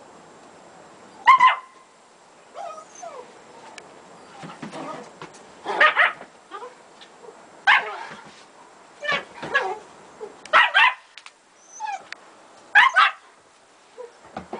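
German Shepherd dog and puppy in rough play: a string of short barks and yips a second or two apart, with a few brief whines in between.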